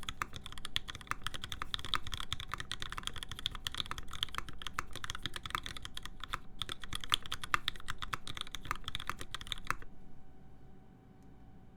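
Fast typing on a custom mechanical keyboard: lubed Alpaca linear switches with PBT keycaps on a full aluminium plate, a dense stream of keystrokes that stops about ten seconds in.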